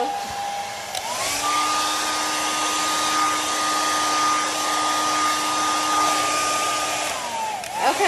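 Conair handheld hair dryer blowing on its low setting, then switched up to high about a second in: the motor's whine jumps in pitch and the rush of air grows louder. It runs steadily on high, then its whine slides down near the end as it is turned down.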